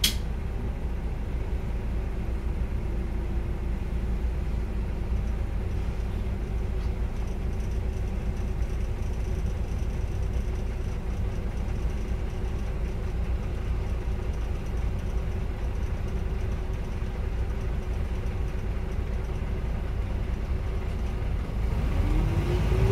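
The bus's Iveco Cursor 9 diesel engine running steadily at low revs, heard from inside the cabin, with a sharp click at the very start. Near the end the engine note rises and gets louder as the bus accelerates.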